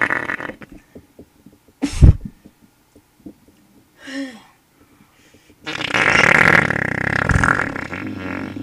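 Fart sounds: one tails off just after the start, a short sharp blast comes about two seconds in, and a long loud fart starts a little past halfway and runs to the end.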